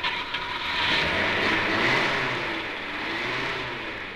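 Sound effect of the FAB 1 Rolls-Royce moving off: a rushing engine sound that builds over the first couple of seconds, then slowly fades.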